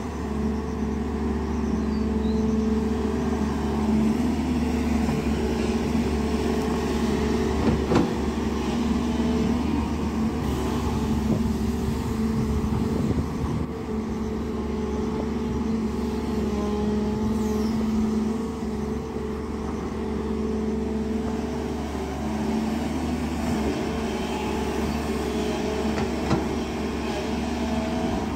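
Diesel engine of a JCB 205 NXT tracked excavator running steadily under working load while it digs and swings its bucket. There is a short knock about eight seconds in and another near the end.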